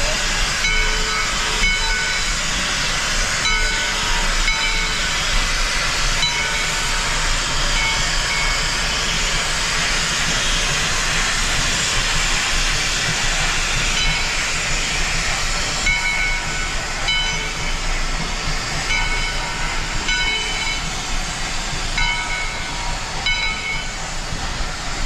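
1928 Lima Shay geared steam locomotive moving off slowly, with a steady loud steam hiss, heaviest midway, and short high metallic tones recurring every second or so.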